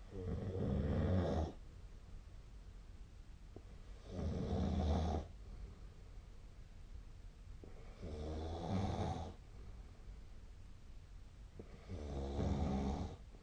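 A sleeping person snoring: four snores about four seconds apart, each lasting about a second and a half.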